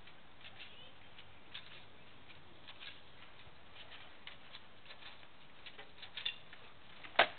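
Quiet background with faint, scattered high chirps and ticks. Near the end comes a sharp clack: a blow landing in armoured sword-and-shield sparring.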